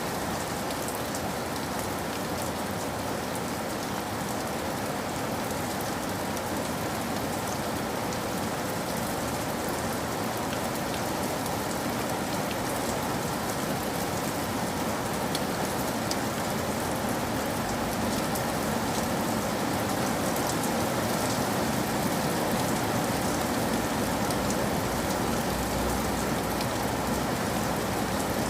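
Steady rain falling, an even hiss with fine drop ticks.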